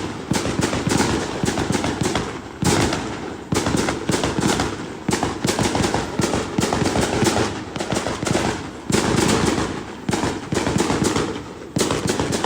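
Firecrackers and fireworks cracking nonstop in dense rapid strings of pops, with new loud volleys breaking in every few seconds.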